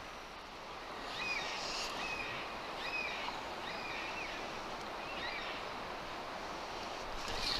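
Shallow river flowing over rocks, a steady rushing wash, with a small bird giving a short high chirp about five times, roughly once a second, in the first few seconds.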